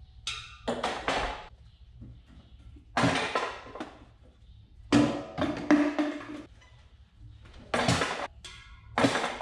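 Trash being cleared out of a tractor cab: bursts of rustling and clattering, about five clusters over the span, over a faint low hum.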